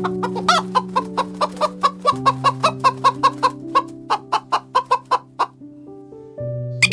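A flock of chickens clucking while feeding on the ground, a rapid run of short clucks about four to five a second that stops about a second before the end. Soft piano music plays underneath.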